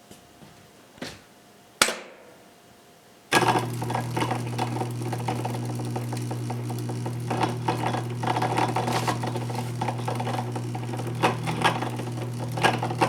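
A washing machine under test gives a few faint clicks and one sharp click. About three seconds in its motor starts and runs with a steady hum and a busy rattling clatter.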